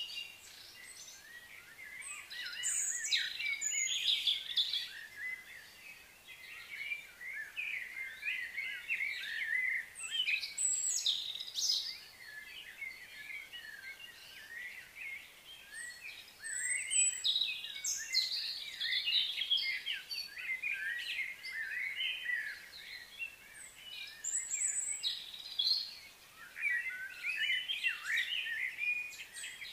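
Several birds chirping and singing, many short overlapping calls that come in clusters with quieter gaps between.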